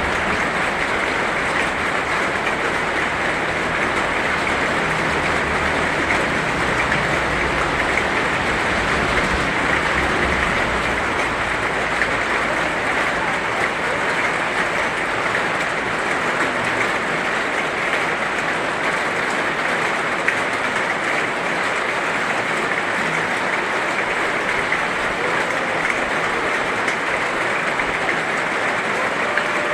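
Heavy rain falling steadily, a dense, even hiss of drops, with a faint low rumble underneath for the first ten seconds or so.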